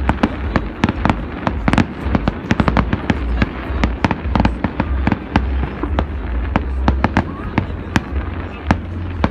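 Fireworks display: a rapid, irregular run of sharp bangs and crackles, several a second, over a low rumble.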